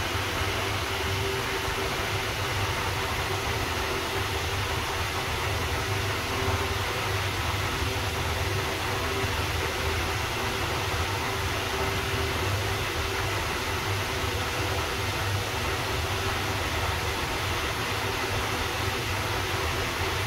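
Finolex wall fan running steadily: a constant rush of air over a low motor hum, with no change in speed.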